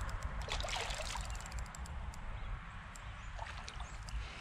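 A hooked carp swirling and splashing in shallow water while being played on light tackle: small irregular splashes and drips, busiest in the first second, over a low rumble.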